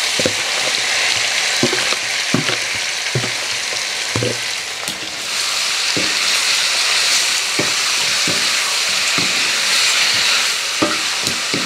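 Curry-marinated shrimp sizzling in hot oil in a metal wok, stirred with a wooden spatula that knocks and scrapes against the pan every second or so. The sizzle grows louder about five seconds in.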